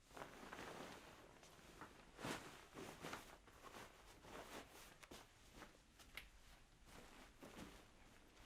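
Near silence: quiet room tone with a few faint scattered knocks and rustles.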